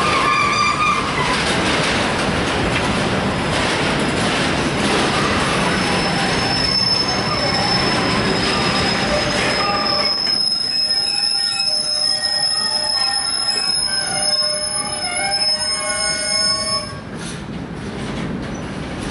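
Freight train of loaded car-carrier wagons rolling past, wheels rumbling and clattering on the rails. About ten seconds in, the rumble falls away and the wheels squeal in several high, wavering tones, which stop abruptly near the end.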